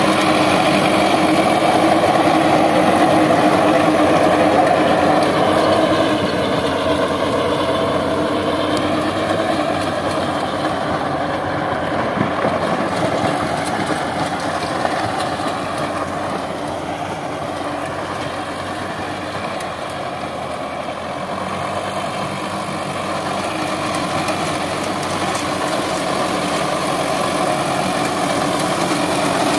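Sonalika DI 750 III tractor's diesel engine running steadily under load as it pulls a rotavator through dry soil. It grows fainter in the middle and louder again near the end.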